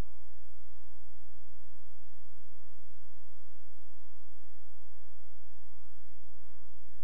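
Steady electrical mains hum: a strong low tone with a buzzy stack of steady overtones above it, unchanging.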